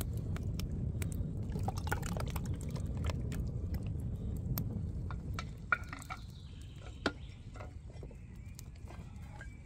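Liquid being poured, a dense gurgling pour for about five seconds that then stops, followed by a light metallic clink.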